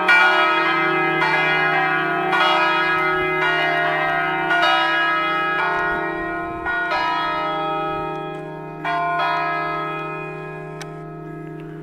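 Three bronze church bells (De Poli and Francesco Broili castings, tuned to E-flat, F and G) swinging and striking together in the tower, with a steady deep hum under the strikes. The strikes come further apart and grow fainter as the ringing winds down; the last comes about nine seconds in, and then the bells ring on as they fade.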